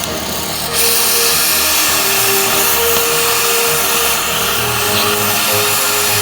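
Cutting torch hissing steadily as it cuts through rusted bolts, getting louder less than a second in. Music plays underneath.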